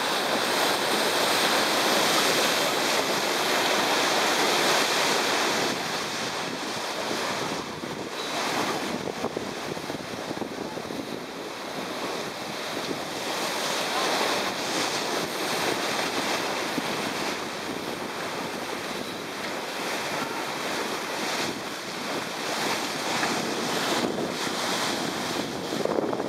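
Sea and wind noise aboard an ocean-racing sailing yacht under way. Water rushes past and wind buffets the microphone in a loud, steady rush that swells and eases every few seconds.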